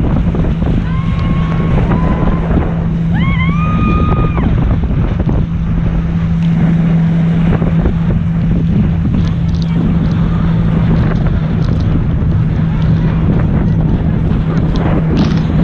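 Towing motorboat's engine droning steadily, with wind buffeting the microphone and the rush of water in the wake as the inflatable is pulled at speed. Two brief high-pitched cries ring out about one and three seconds in.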